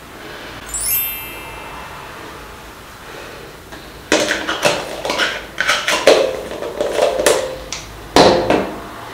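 A brief rising chime about a second in, then a run of sharp knocks and clinks as a plastic jar of body butter is handled and lidded, ending with a louder knock as it is set down on the bathroom counter.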